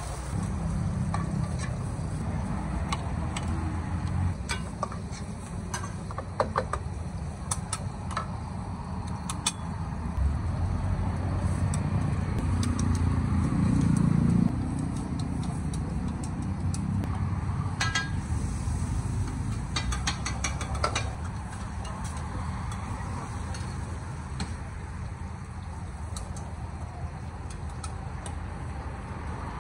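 Metal spatula and ladle scraping and clinking against a large wok and a steel bowl, with scattered sharp clinks, over a steady low rumble.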